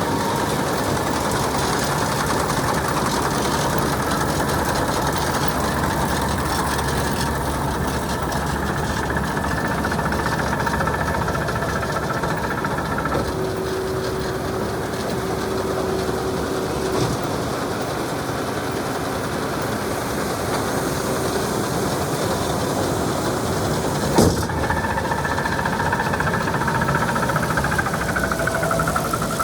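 Tractor engine running steadily at idle, with faint steady whines that come and go and one sharp clack about three-quarters of the way through.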